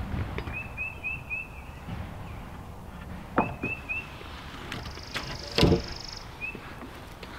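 A few sharp wooden knocks as a loose fence-rail board is handled against the fence posts, the loudest about two thirds of the way through. A bird calls in short runs of high chirps, with one higher trill.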